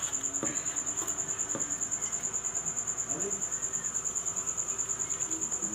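A cricket chirping: a steady high-pitched trill pulsing about ten times a second, with a few faint knocks beneath it.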